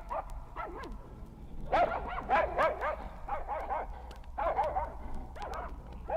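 Dogs barking and yelping in quick clusters of short, pitched calls, a sound effect played from a vinyl record with low hum and surface clicks underneath.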